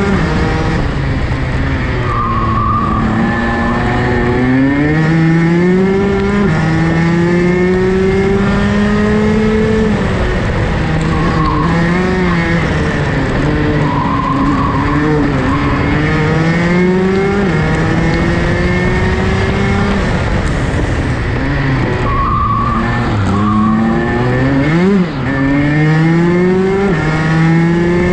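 Rotax DD2 kart's 125 cc single-cylinder two-stroke engine heard onboard at racing speed, its pitch climbing for several seconds at a time, then dropping sharply, over and over through the lap.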